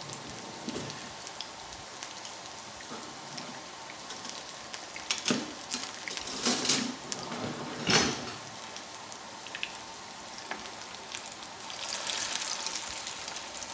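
Vegetable cutlets shallow-frying in hot oil in a nonstick pan, a steady sizzle. A slotted spatula scrapes and clatters against the pan a few times around the middle. Near the end the sizzle grows louder as a cutlet is turned over.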